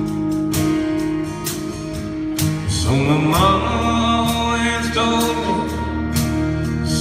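Live band playing a slow country song, with a steady drum beat about twice a second under guitars. A singing voice comes in about three seconds in.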